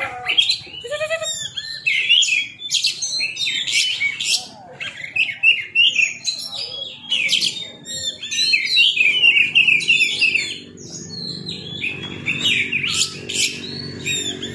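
Oriental magpie-robin singing a long, fast, unbroken run of varied high whistles, chirps and sharp chips.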